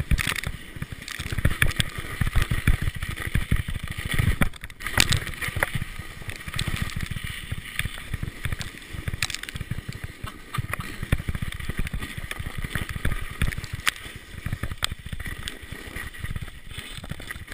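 Wind buffeting the microphone of a chest-mounted camera on a mountain bike riding fast down powder snow. The tyres hiss through the snow, and the bike gives a few sharp knocks along the way.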